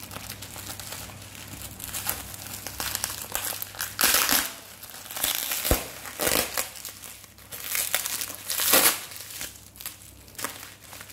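Bubble wrap and plastic packaging crinkling as a parcel is unwrapped by hand, in irregular bursts, loudest about four and nine seconds in, with one sharp click a little past halfway.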